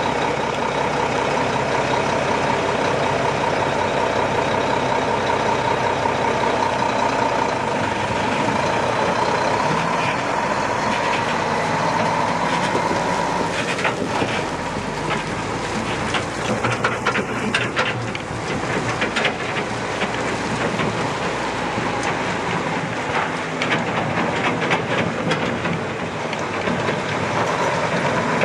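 Diesel engine of a 1998 Mack RD688S triaxle dump truck running steadily as the truck is moved, with scattered clicks and rattles joining from about halfway through.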